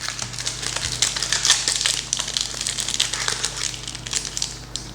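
Foil wrapper of a Pokémon Crown Zenith booster pack crinkling and crackling continuously as it is worked open with difficulty.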